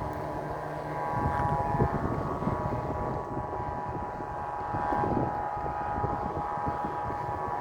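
Several Vietnamese kite flutes (sáo diều) droning together in a chord of steady tones, over strong wind buffeting the microphone.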